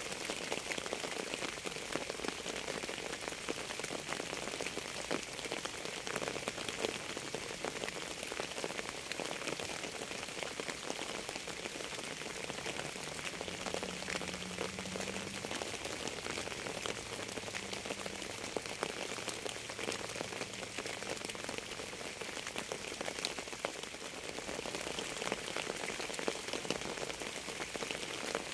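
Steady rain, a dense patter of many individual drops at an even level.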